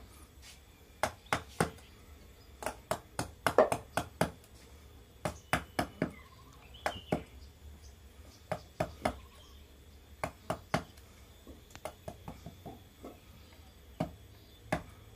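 Wooden mallet tapping a chisel into a block of waru wood to carve a barongan mask: sharp irregular knocks, often in quick runs of two to four with short pauses between.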